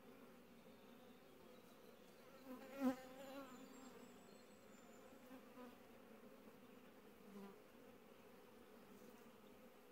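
Honeybees buzzing steadily around an open hive, with a brief louder buzz about three seconds in.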